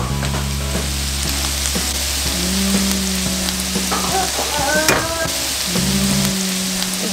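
Kohlrabi, onion and pork frying in lard in a cast-iron skillet, sizzling steadily, with a few scrapes of a wooden spatula. Soft background music with sustained low notes plays underneath.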